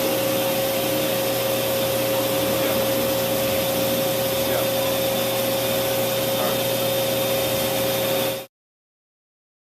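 Machinery running with a steady hum and a constant whine, which cuts off abruptly about eight and a half seconds in.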